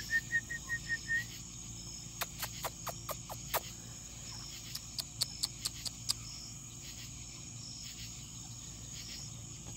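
Steady high chirring of insects, with a short run of about six quick, even pips in the first second and a scatter of sharp clicks through the middle.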